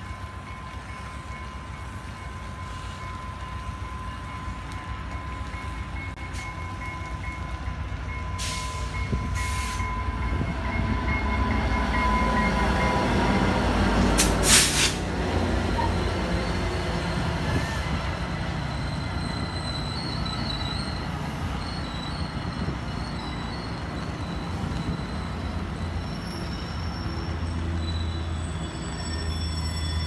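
AMT commuter train passing close by, led by an F40PH diesel locomotive pulling bilevel coaches. The rumble builds to its loudest about halfway through, with a sharp burst as the locomotive goes by. A steady high tone sounds through the first dozen seconds, and wheels squeal intermittently as the coaches roll past.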